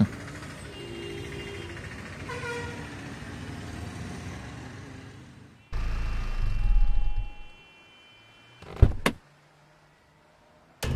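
A faint steady background hum, then after a sudden cut a car pulls up with a low engine and tyre rumble that fades out. About nine seconds in comes a short sharp click of the car door being opened, then near silence.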